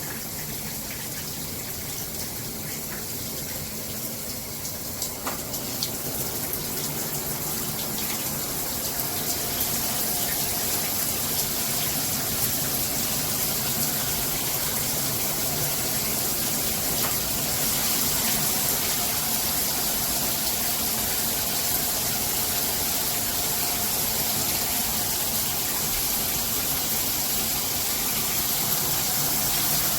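Water spraying from a Hibbent all-metal shower head: a steady hiss of running shower water that grows somewhat louder over the first several seconds, then holds even.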